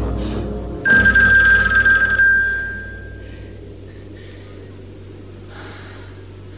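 Telephone bell ringing once with a loud, trilling ring that starts about a second in, lasts about a second and a half and then fades away, over a low steady hum.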